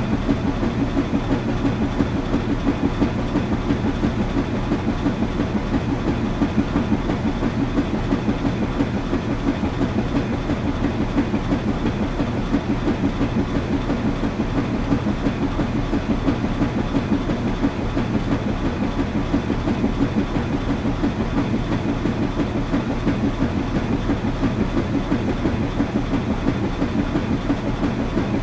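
Washing machine running steadily: a constant low hum with a fast, even rattle over it.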